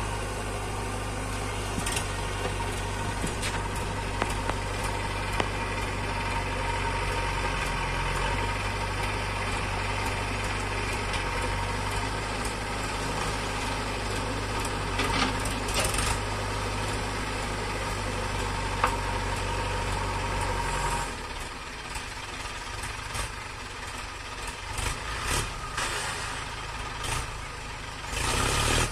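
Diesel engines of a farm tractor and a JCB backhoe loader running at a steady idle, a low even hum. About two-thirds of the way through the hum drops away, leaving scattered clattering knocks and a short loud rush near the end.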